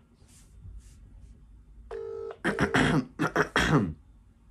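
UK telephone ringback tone playing through a mobile phone's speaker, one ring starting about two seconds in. It is then covered by several loud bursts of a man clearing his throat.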